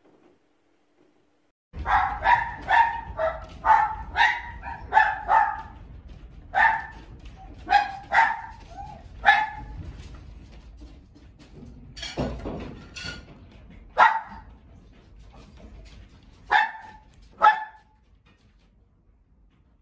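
A dog barking, first in a fast run of sharp barks, then in single barks a few seconds apart, over a low rumble as the house shakes in an earthquake. One broader, louder noise comes partway through.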